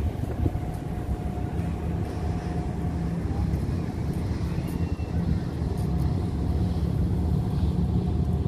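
Harbour ambience: a steady low rumble of boat engines and water, with a faint steady hum over it.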